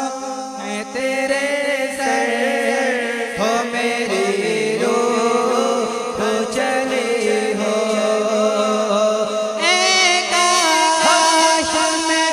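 A man singing a naat, an Urdu devotional poem, unaccompanied into a microphone, in long ornamented lines that slide and waver in pitch, over a steady low drone.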